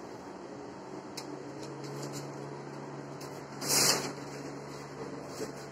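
Hand work on a stone backsplash slab coated with tile adhesive: scattered light clicks and knocks, and one short, loud scrape a little past halfway, over a steady low hum.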